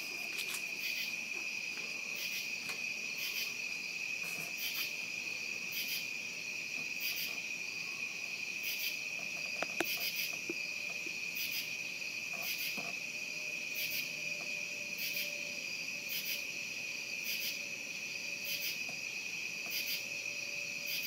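Night insects, crickets, chirping outdoors: a steady high trill with a separate chirp repeating about once a second.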